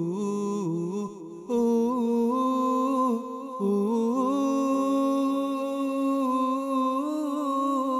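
Wordless humming voice without instruments: long held notes that slide slowly between pitches, with a brief dip in level about one and a half and three and a half seconds in.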